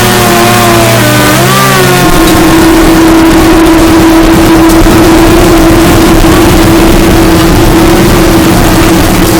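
Harsh noise: a loud, saturated wall of distorted noise built on an engine-like drone from a chainsaw. About two seconds in, the lower droning tones drop away and a single steady hum carries on under the noise.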